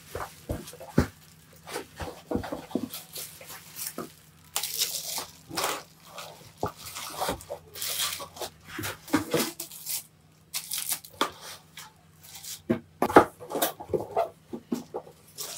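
Packaging and parts being handled by hand: irregular rustling and tearing with scattered sharp clicks and knocks.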